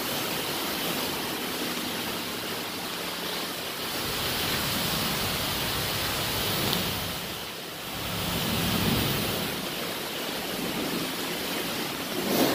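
Steady hiss of high-pressure water spray washing down a semi truck at a truck wash, dipping briefly about two-thirds of the way through.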